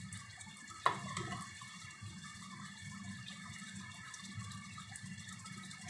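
Tomato fish curry simmering gently in the pan, a faint steady bubbling, with one sharp utensil click about a second in.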